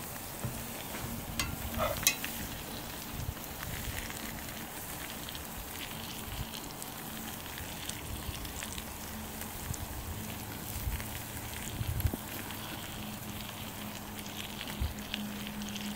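T-bone steaks sizzling over a charcoal grill, one frying in melted butter in a cast-iron skillet and one searing on the grate above the hot coals: a steady crackling sizzle with a couple of sharper clicks about two seconds in.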